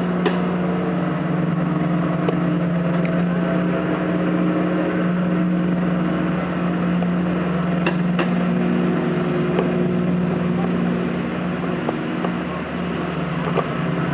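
A steady low mechanical hum, with a few light clicks and taps of a small plastic toy being handled, one about eight seconds in.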